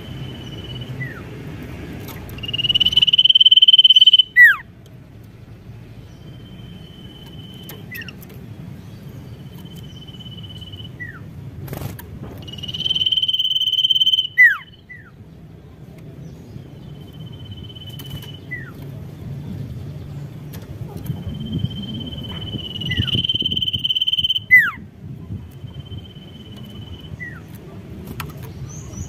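Sirtu (common iora) singing: level high whistles, each followed by a quick falling note, repeated every few seconds. Three of the whistles are long and loud, with shorter, fainter ones between them.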